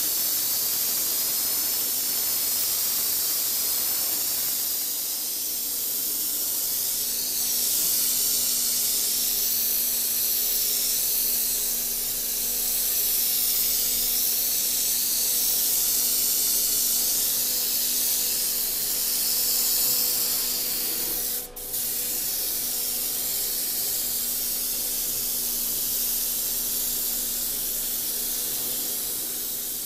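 Airbrush spraying a black colour coat onto a guitar body: a steady hiss of air and atomised finish, breaking off for a moment about two-thirds of the way through.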